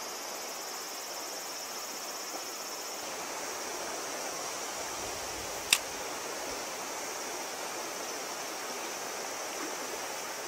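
Mountain stream water running steadily over stones, with a steady high insect drone above it. A single sharp click a little past halfway.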